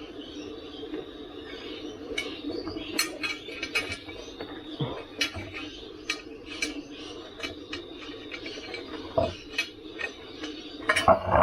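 Metal tools and parts clinking and tapping in irregular clicks over a steady hum while an electric unicycle's tyre is being changed, with a louder cluster of knocks near the end.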